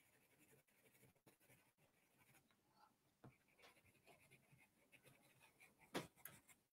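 Near silence with faint scratching of a pencil on drawing paper as it shades. A brief soft knock about six seconds in.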